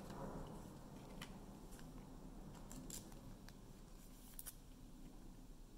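Faint handling of trading cards and foil card packs: a few soft scattered clicks and light rustles.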